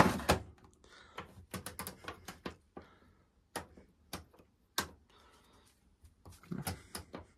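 A run of sharp plastic clicks and knocks from a Zanussi washer-dryer's detergent drawer being handled, the loudest knock right at the start.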